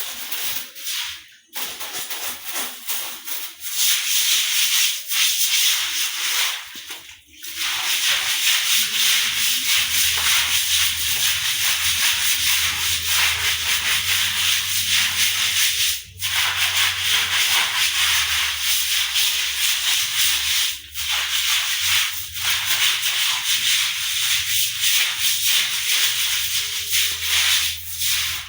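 A broom scrubbing a wet floor in fast, continuous strokes, with a few short pauses about seven, sixteen and twenty-one seconds in.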